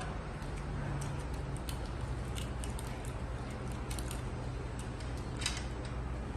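A few light, sharp clicks of tools and scooter parts being handled during assembly, spread out over a steady low hum.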